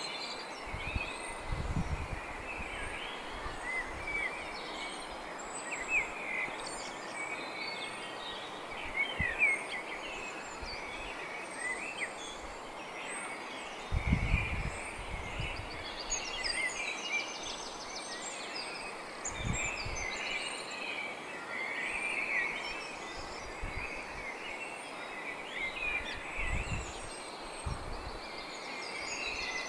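Small birds chirping and singing continuously over steady outdoor background noise, with a few low thumps and bumps close to the microphone.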